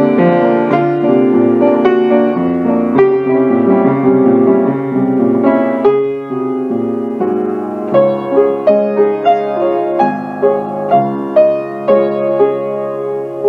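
Piano music: held chords, then from about eight seconds in a steady run of separately struck notes.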